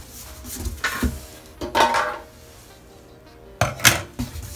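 Cardboard box flaps scraping and rustling and a few knocks as a microwave oven is handled in its shipping box, two sharp knocks near the end being the loudest. Soft background music plays underneath.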